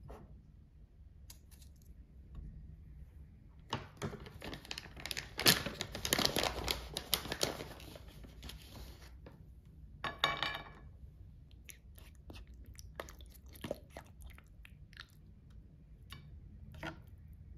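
Food packaging being handled and opened: several seconds of crinkling and tearing. This is followed by a short squeaky burst and then scattered light clicks and taps as food is put onto a china plate.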